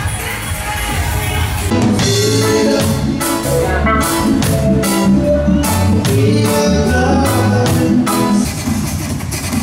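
Live band music: drum kit, electric guitars and keyboard with a singer. It takes over from other music about two seconds in.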